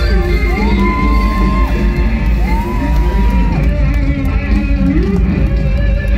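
Live Isan mor lam band playing loud, with a steady bass and beat under a lead line that twice slides up into a long held note.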